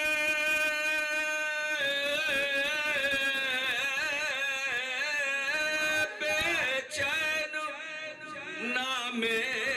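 A man singing an Urdu naat with no instruments: he holds one long note for the first two seconds or so, then sings a wavering, ornamented run of the melody.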